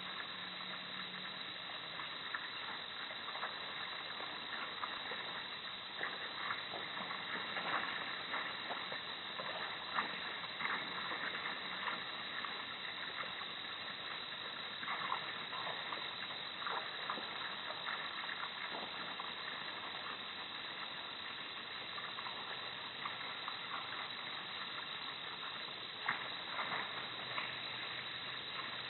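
Steady hiss of outdoor night ambience through a camera's microphone, with faint scattered ticks and rustles.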